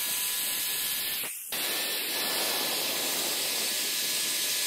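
Electric saw running steadily with a hissing whir while cutting wooden chair legs to an angle; the sound breaks off briefly about a second in and then carries on.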